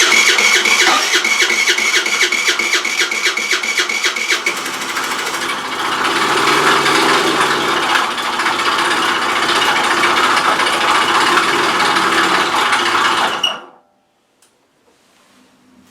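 Rex RS500 Speed scooter's four-stroke engine, first turning over with a steady whine and even ticking, then running loud with a clattering, knocking noise for about eight seconds before cutting off suddenly. The clatter does not sound normal, and the mechanic suspects the engine is low on oil.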